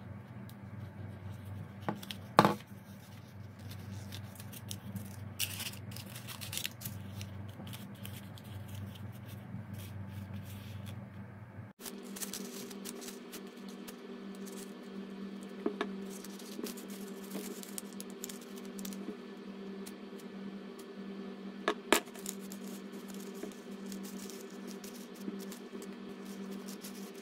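Stiff kraft paper being handled and rolled into cones, with rustling, scraping and a few sharp taps, the loudest a little over two seconds in. Underneath runs a steady low hum that shifts to a higher pitch after a brief dropout near the middle.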